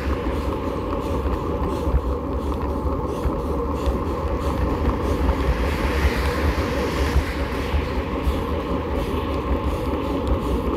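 Steady wind buffeting and road rumble on a bicycle-mounted action camera's microphone. A car passes about six seconds in, its tyre hiss swelling and fading.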